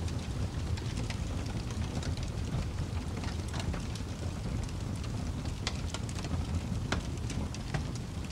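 Steady rain-like noise with a constant low rumble and scattered short crackles or drop ticks, an ambient background track.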